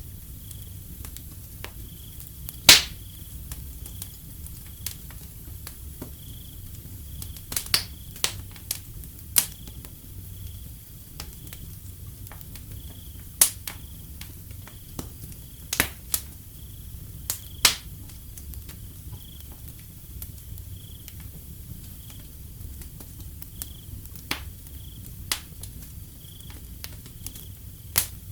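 Wood fire crackling, with irregular sharp pops, the loudest a few seconds in and small clusters in the middle, over a low steady rumble. Behind it a cricket chirps steadily in a high, evenly pulsing trill.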